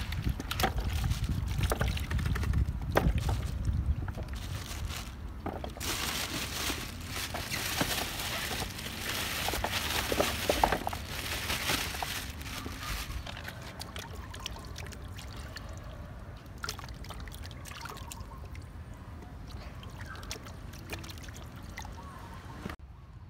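Water running from a garden hose into a plastic basin and sloshing as sapodilla fruit are dropped in and washed by hand, with scattered knocks and splashes. The water is loudest in the middle and dies down to quieter handling near the end.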